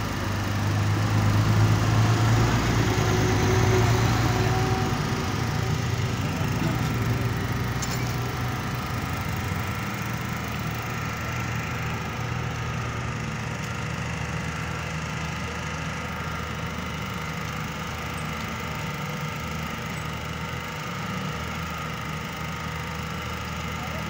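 An engine running steadily at idle, a constant hum that is loudest in the first few seconds and then settles slightly lower.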